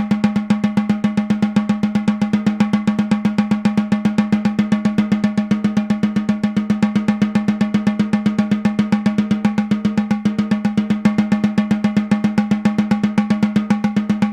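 Snare drum with its snares disengaged, played with sticks in even sixteenth notes. Bars of single strokes alternate with bars of double strokes, giving a fast, continuous stream of strokes over the head's steady ring.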